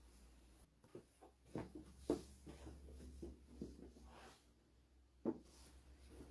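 Scattered faint clicks and knocks in a small room, with a sharper knock about two seconds in and another about five seconds in.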